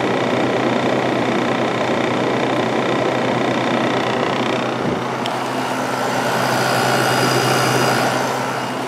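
Vintage Kenmore 5,000 BTU window air conditioner, built by Whirlpool with a Matsushita compressor, running on low fan with the compressor on: a steady rush of fan air over a low compressor hum. About five seconds in there is a soft knock and the character of the running sound shifts slightly.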